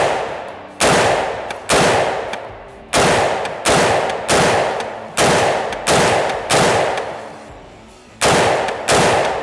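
About a dozen 5.56 shots from a 7.5-inch-barrelled AR-15 pistol in steady semi-automatic fire, roughly one every three quarters of a second, with a slightly longer gap near the end. Each shot has a sharp crack and a decaying tail. The muzzle wears a Manticore Arms Afterburner linear compensator with its compensating tip, which throws the blast forward; it is called 'a little blasty'.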